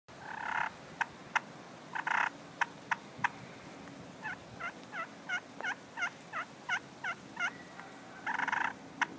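Slate pot turkey call worked with a striker, imitating a hen wild turkey: a few sharp clucks and short scratchy notes, then from about four seconds in a run of about ten evenly spaced yelps, about three a second, and one more rasp near the end. The call is a soft one.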